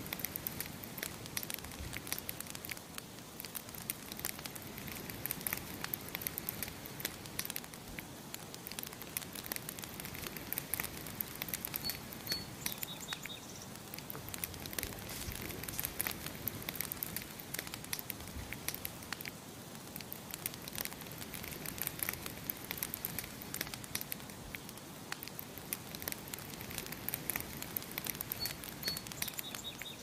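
Campfire crackling and popping in a steady, irregular stream of sharp snaps over a soft hiss. A short high bird chirp comes twice, about halfway through and near the end.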